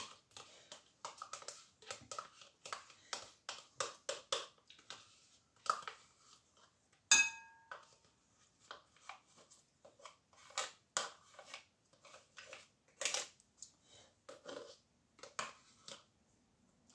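Light taps and scrapes as a plastic yogurt pot is emptied into a glass mixing bowl, with one ringing clink against the glass about seven seconds in.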